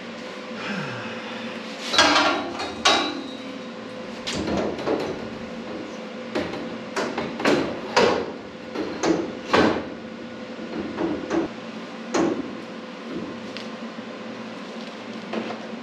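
Steel bumper tubing knocking and clanking against the race car's front frame as it is set onto its mount points: a series of irregular sharp metal knocks with short ringing.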